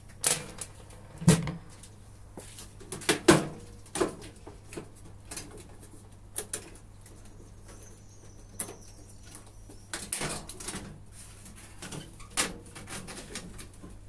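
Irregular knocks, clicks and clatter of plastic and metal parts as the control panel of an old Indesit washing machine is worked loose and lifted out, the loudest knocks about a second and about three seconds in.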